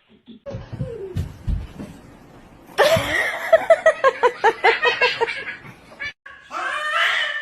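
A person laughing hard, a quick run of about a dozen short bursts of laughter.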